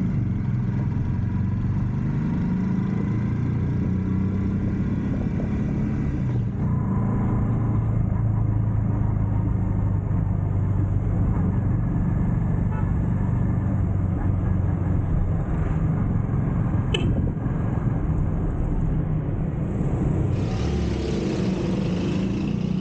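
A motor vehicle's engine running while on the move, heard as a steady low rumble with road noise. There is a single sharp click about seventeen seconds in.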